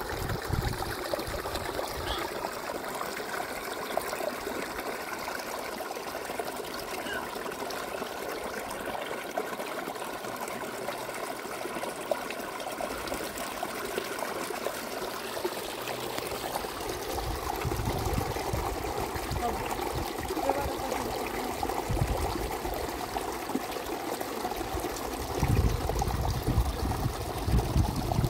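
Water trickling and running steadily, like a small stream or spring outflow, with bursts of low rumble in the second half.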